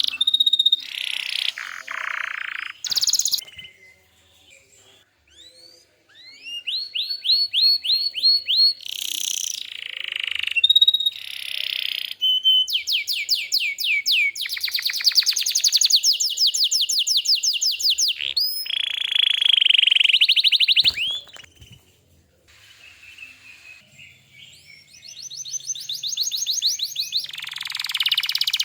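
Domestic canary singing a long varied song: runs of repeated rising whistled notes and long rapid trills, with short pauses a few seconds in and about two thirds through.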